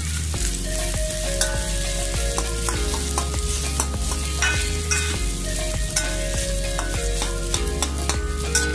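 Fried rice with egg sizzling in oil in a wok while a metal spatula stirs and breaks it up, scraping and clicking against the pan many times.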